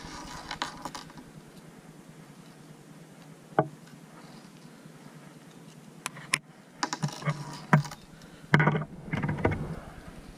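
Small clicks and handling rustle of fingers twisting stainless steel leader wire against a treble hook in a haywire twist, with a few sharp ticks about three and a half and six seconds in and a busier run of clicks and rustling near the end.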